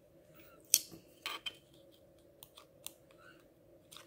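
Small metal weights and a small hand tool being worked at by hand: a string of light, irregular clicks and scrapes, the sharpest about three-quarters of a second in, over a faint steady hum.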